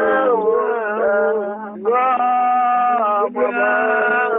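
A man singing slowly in three drawn-out phrases of long held notes that slide between pitches, over a steady low hum.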